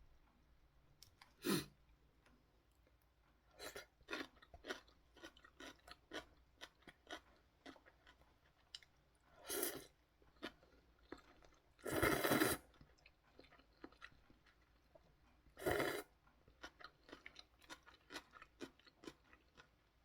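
A person eating instant ramen noodles close to the microphone: wet chewing with many small mouth clicks and a few louder, longer bursts of eating noise, the loudest about twelve seconds in.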